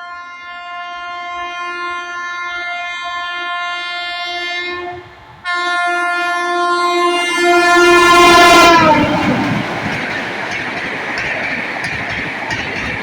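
A train horn sounds one long steady note that swells as the train approaches, breaks off briefly about five seconds in, then comes back louder. Just before nine seconds its pitch drops as the locomotive passes. The rumble and clatter of the train running by follows.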